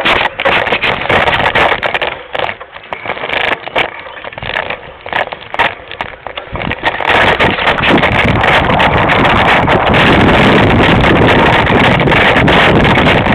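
Mountain bike clattering and rattling over a rough trail, with many sharp knocks. About seven seconds in this gives way to a steady, loud rush of wind over the microphone as the bike rolls fast across open ground.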